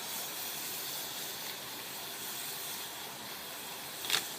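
Water spraying steadily from a hose onto window screens to wet them down, a continuous hiss that cuts off near the end.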